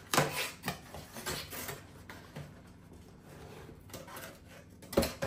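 Hands rummaging in a cardboard shipping box and lifting out a boxed phone: cardboard rubbing and scraping with scattered clicks, and one sharp knock near the end.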